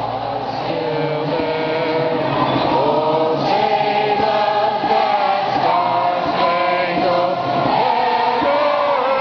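Many voices singing or chanting together on long, wavering held notes.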